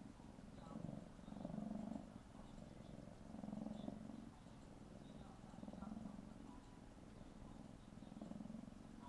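Tabby kitten purring close up: a low rumble that swells and eases roughly every two seconds, with each breath in and out.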